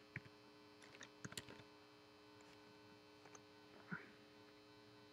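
Near silence: a faint steady mains hum with a few soft, scattered computer keyboard key clicks.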